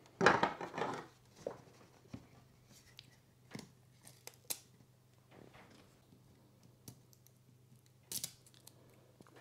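Hands handling a plastic security camera: scattered small clicks and rustles as the housing and lens dome are turned and gripped, the loudest near the start and again near the end, over a faint steady low hum.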